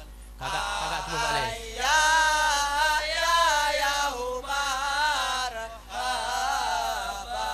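Islamic devotional chanting sung over a PA: long, wavering melodic phrases, with short breaks about four and six seconds in.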